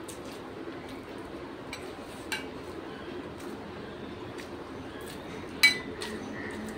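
Quiet eating sounds with a few small clicks, and one sharp metallic clink that rings briefly, a spoon striking a metal plate, about five and a half seconds in.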